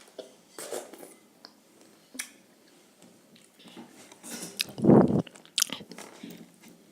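Strawberries being bitten into and chewed: irregular chewing and biting noises, with one louder, deeper burst about five seconds in.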